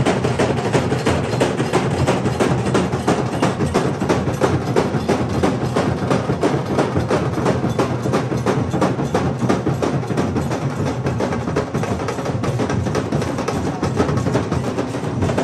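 Music driven by fast, continuous drumming, with rapid drum strokes that keep going without a break.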